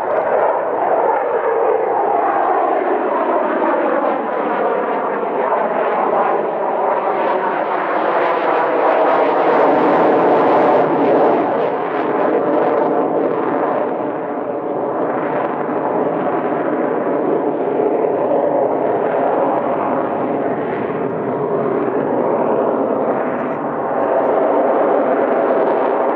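Jet engines of a Mikoyan MiG-29M OVT thrust-vectoring fighter at high power during aerobatic manoeuvres: a continuous loud jet noise. Tones slide down and up within it as the aircraft moves.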